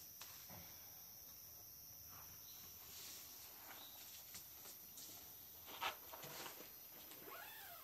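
Faint night-time outdoor ambience: a steady high insect hum, with scattered soft clicks and rustles, one louder short knock about six seconds in, and a brief squeak that rises and falls near the end.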